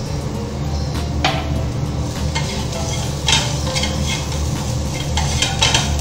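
A spatula stirs and scrapes a sizzling ghee tempering in a non-stick frying pan, with a few short sharp scrapes and clinks against the pan, over a steady low hum.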